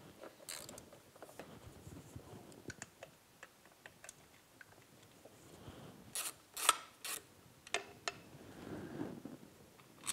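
Wrench work on the bolts holding the recoil starter of a Johnson 6 HP outboard: faint ticking and rubbing of a ratchet turning bolts out, with a few sharper metal clicks about six to eight seconds in.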